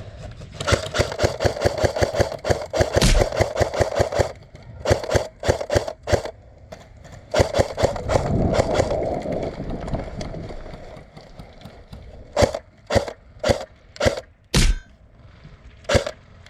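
Electric airsoft gun firing: a long burst of sharp shots at a sluggish rate of about seven a second, shorter bursts after it, then single shots spaced out near the end. The slow, laboring fire is the sign of a dying battery.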